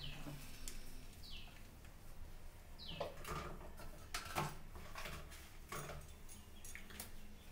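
Quiet kitchen background: a faint low hum, a few light clicks, and two short falling chirps from a bird, about a second and a half apart.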